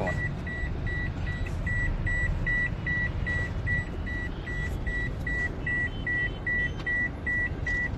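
A car's electronic warning beep repeating steadily, about two and a half short high beeps a second, over the low rumble inside the car's cabin.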